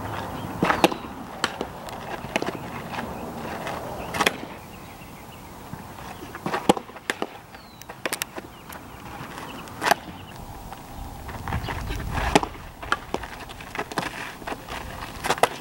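Softball smacking into leather fielding gloves during a throwing and fielding drill: sharp, irregularly spaced pops over a steady background hiss.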